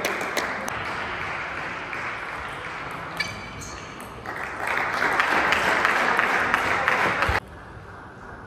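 Applause in a large hall, fading away and then swelling again, cut off abruptly near the end, with one sharp click about three seconds in.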